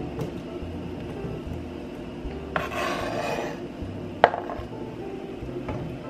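A knife scraping halved cherry tomatoes off a plastic cutting board into a pan gives a rasping scrape of about a second. A little after four seconds there is a single sharp knock against the pan.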